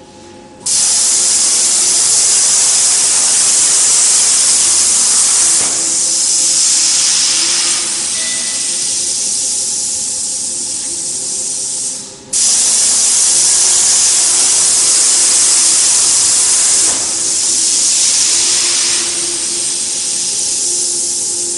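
Loud steady hiss of gas rushing through a CNC plasma cutting torch while no arc is lit. It eases twice for a couple of seconds, and cuts off for a moment about halfway before starting again at once.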